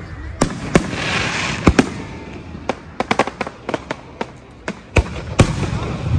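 Aerial fireworks shells bursting with sharp bangs, one after another. A hissing crackle comes about a second in, a quick run of pops about three seconds in, and the loudest bangs come around five seconds.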